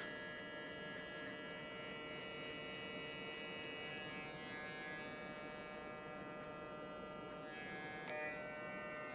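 Cordless hair clippers humming steadily while they taper the hair at the back of the neck, with the little crunch of hair being cut, the sound the barber listens for to know the blade is cutting. A click and a shift in the hum come about eight seconds in.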